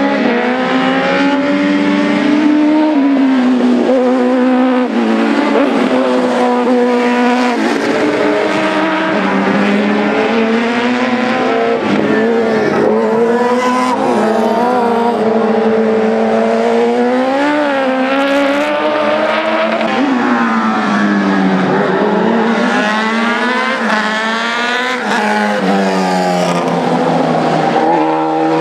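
Single-seater formula race car engines running hard, the pitch climbing through the gears and falling away again as the cars brake and pass. Near the end come several rising sweeps in quick succession.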